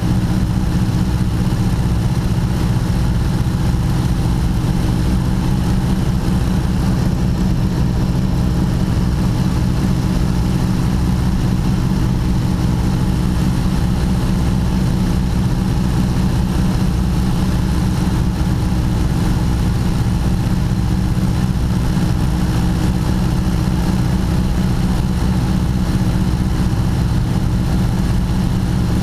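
Ford Trimotor's three radial engines running steadily in cruising flight, a loud, even low rumble heard from inside the cockpit.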